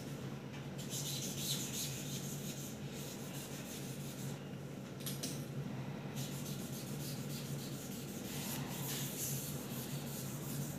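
Fingertips rubbing and pressing across the surface of an LCD panel, a dry scratchy rubbing that comes and goes and eases off for a moment near the middle. A steady low hum runs underneath.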